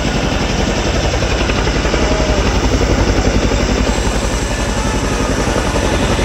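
Helicopter flying close by, its rotor blades beating in a fast, steady chop.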